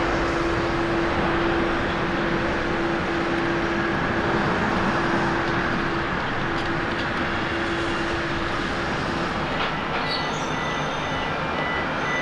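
Jet engines of a China Airlines Airbus A330-300 at takeoff power as it climbs out, a steady roar with a held low hum. About nine seconds in the sound changes to a second A330's engines as it rolls along the runway, quieter, with a steady high whine.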